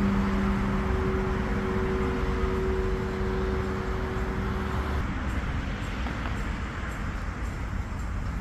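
Steady rumble of city traffic, with a low held musical drone that stops about five seconds in.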